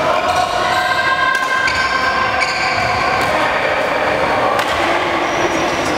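A badminton rally in a sports hall: a few sharp racket hits on the shuttlecock, with shoes squeaking on the wooden court floor over the steady din of the hall.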